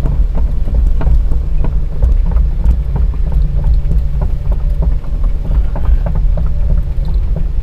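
Kobelco SK210 excavator's diesel engine running steadily under load, a loud low rumble with frequent short clicks and knocks over it.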